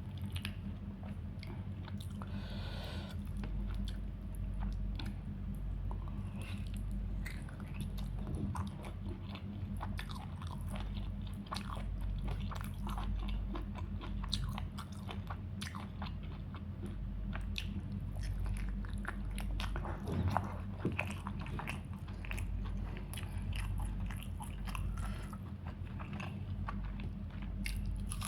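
A person eating chicken curry, rice and salad: chewing and biting with many small crisp crunches throughout, over a steady low hum.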